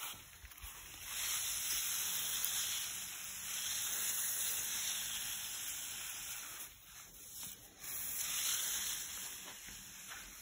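Water hissing from a garden hose spray nozzle onto soil. It dips briefly about half a second in and again about seven seconds in.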